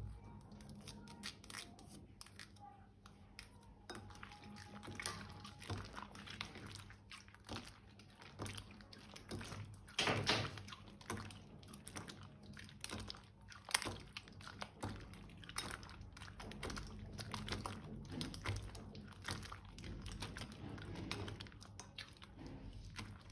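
Slime being kneaded and squeezed by hand: irregular sticky squelches, crackles and small pops, with a louder squelch about ten seconds in.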